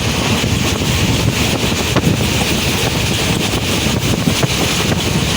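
Passenger train running fast, a loud steady rush of wheel and track noise with wind buffeting the microphone.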